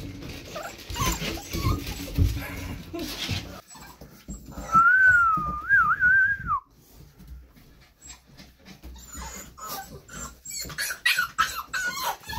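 American Bully puppy whining to be held: one long wavering whine about five seconds in, dropping at its end, with shorter whines and rustling around it.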